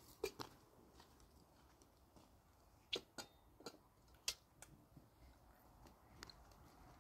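Near silence broken by a handful of short, light clicks and taps at uneven intervals, the sharpest about three and four seconds in.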